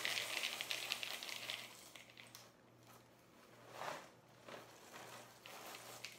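Dry breakfast cereal pouring from the box into a large plastic bowl: a dense rattling patter of pieces that thins out about two seconds in. A few shorter rattles follow as the box is tipped again.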